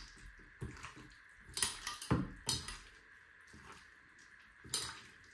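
Hands squishing and turning oiled, spiced chicken breast pieces in a stainless steel bowl: a few scattered wet squelches and light knocks against the bowl.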